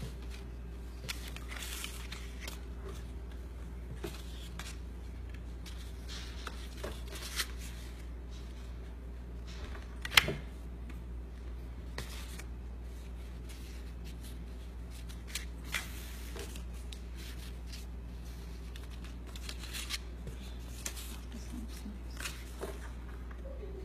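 Cardstock paper petals rustling and scraping as they are handled and pressed into place, with scattered light clicks and taps and one sharper click about ten seconds in, over a steady low hum.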